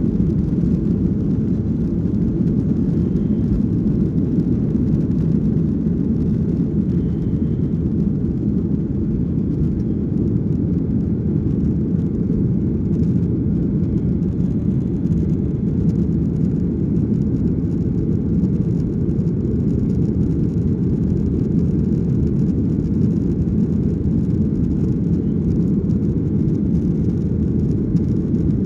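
Jet airliner during takeoff: a steady low rumble of engines and airflow, unchanging in level.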